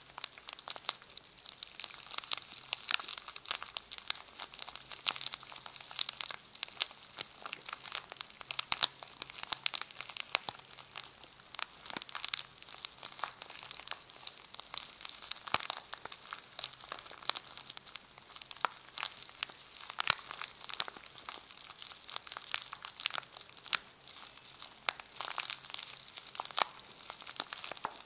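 Dense, irregular crinkling and crackling of a brush's packaging being handled and squeezed close to the microphone.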